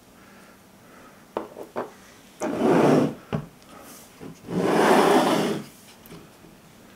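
Resin-printed statues handled on a tabletop: a couple of light knocks, then two loud scraping slides, the second longer, as the pieces are moved across the table and set down.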